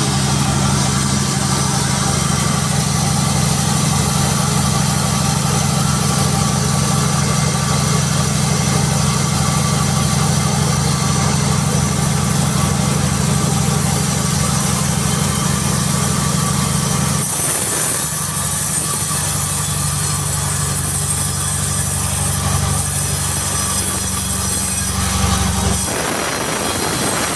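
Sawmill machinery running with a steady engine hum. About two-thirds of the way through, the sound changes and a high hiss joins in. The low hum drops away shortly before the end.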